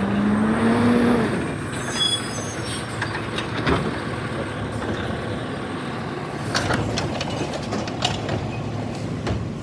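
Automated side-loader recycling truck working its hydraulic arm: the diesel revs up with a rising whine in the first second as the arm grips and lifts a blue recycling cart, then runs steadily, with clattering knocks near the end as the cart is tipped into the hopper.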